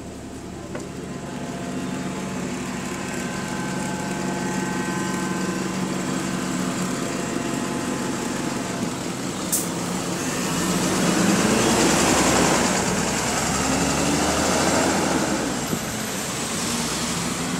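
Double-decker bus's engine cooling fan running with a steady whine over the idling engine. About ten seconds in the engine revs up and grows louder as the bus pulls away, then eases off.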